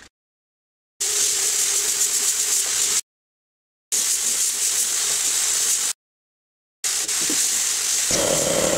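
Compressed-air paint spray gun hissing as it sprays paint on a car, in three runs of about two seconds each with dead silence between.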